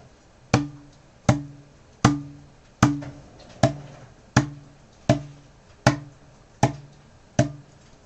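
A 2-liter plastic Sprite bottle knocked against the top of a person's head: ten knocks in an even rhythm, about three-quarters of a second apart, each with a brief low ring.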